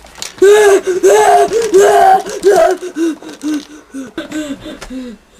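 A person's voice letting out a string of short, strained cries, about two a second. They are loud at first, then fade and drop in pitch.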